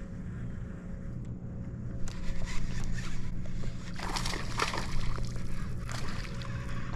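Water splashing and sloshing, loudest about four to five seconds in, as a bass strikes a lure being reeled across the surface toward the kayak, over a steady low hum.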